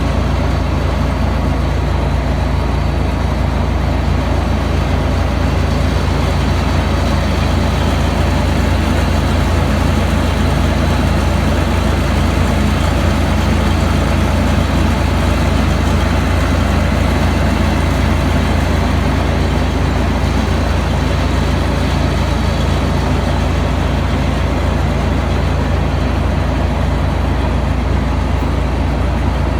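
Large diesel farm machine running steadily under load, a deep, even engine hum with a hiss of machinery noise above it.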